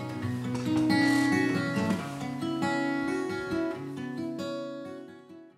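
Steel-string acoustic guitar playing the closing bars of a song, strummed and picked chords with no singing, fading out and stopping at the end.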